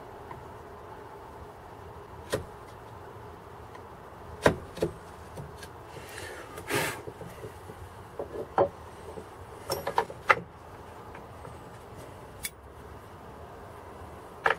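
Scattered sharp clicks and knocks of steel drill bits and a wooden-handled hand tool against a small oak box and wooden workbench, with a short scrape about six to seven seconds in and a quick double knock at the end.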